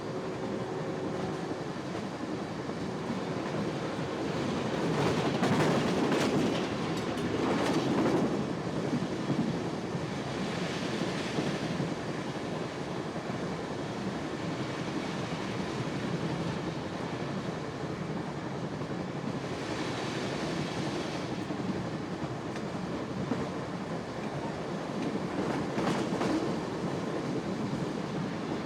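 Steady rumble and rattle inside a fast-moving train carriage, the wheels clattering over the rails, swelling louder a few times. A faint, steady two-note tone near the start, a distant train horn.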